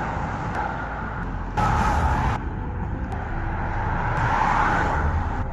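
Outdoor background noise of road traffic, a steady rumble and hiss with no clear single vehicle. Its level steps abruptly up and down a few times.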